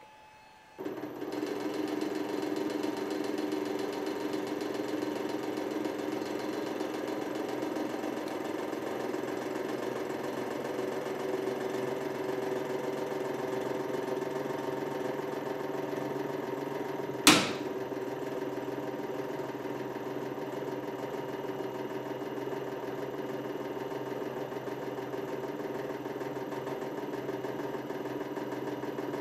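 Hydraulic press pump motor starts about a second in and runs steadily with a hum as the ram bears down on the insulated handle of a pair of pliers. About seventeen seconds in, a single sharp crack rings out under the load.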